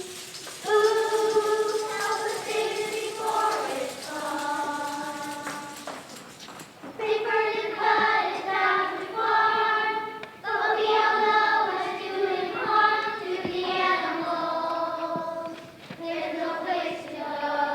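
A choir of second-grade children singing together in held phrases with short breaths between them, and a brief pause about six seconds in.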